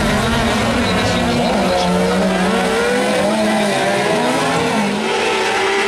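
Several autocross buggies racing on a dirt track, their engines revving up and down in overlapping, wavering notes.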